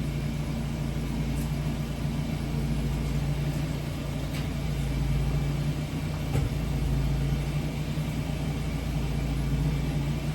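Steady low hum of a running motor, with a few faint clicks and knocks about halfway through.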